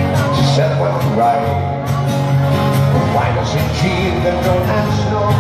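Two acoustic guitars strummed in an upbeat song, with a man singing into a microphone.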